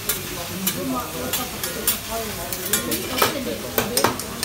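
Leafy greens sizzling on a hot teppanyaki griddle, with a dozen or so sharp clicks and scrapes of metal spatulas on the steel plate.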